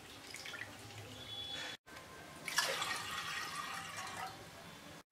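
Faint swishing and dripping of water as split chickpeas are rubbed by hand in a bowl, then, about two and a half seconds in, a louder stream of water poured from a glass into a pressure cooker.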